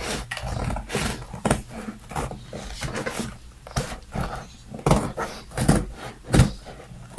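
Plastic packaging rustling and crinkling as a parcel of dog food is handled and opened by hand, in a run of irregular sharp crackles.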